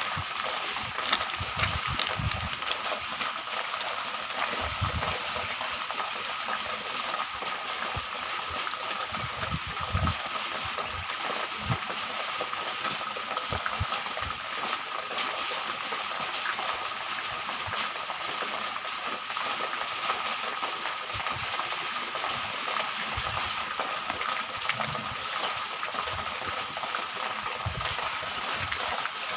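Steady rain hiss with scattered taps and drips, a steady high note running through it, and the occasional crinkle of plastic seed packets being handled.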